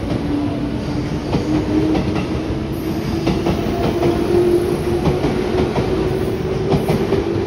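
JR West Hanwa Line electric train pulling out of the station and gathering speed. Its motor whine rises slowly in pitch over the rumble of the cars, and the wheels knock over the rail joints again and again.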